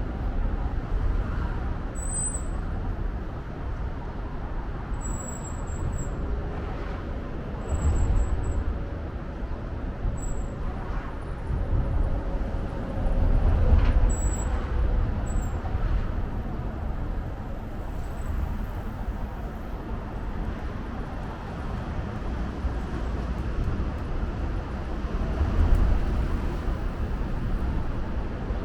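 Steady city traffic noise with a low rumble, swelling as vehicles pass several times, with a few brief, faint high-pitched chirps over it.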